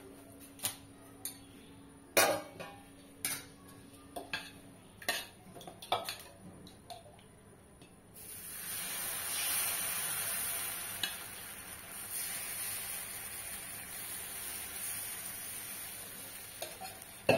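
Clinks and knocks of a ladle stirring thin rava dosa batter in a steel bowl. About eight seconds in, a sudden, steady sizzle begins as the batter is poured onto the hot nonstick tawa.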